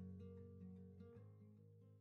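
Soundtrack song with guitar fading out, cutting off at the very end.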